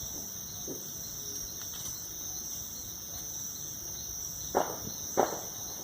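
Crickets chirping in a steady, high-pitched night chorus, with two short sharp cracks near the end.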